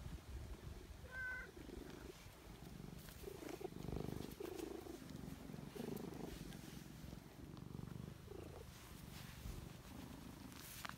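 Cat purring steadily as a hand strokes it, a low continuous rumble.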